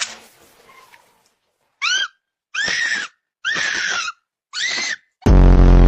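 An animal crying out: four short, high-pitched calls, each rising and falling in pitch, then a much louder, harsh, buzzing cry near the end.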